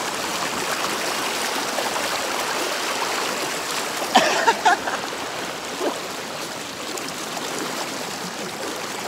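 Shallow river rapids rushing over rocks, a steady churning of white water around the microphone, with a man's voice briefly about four seconds in.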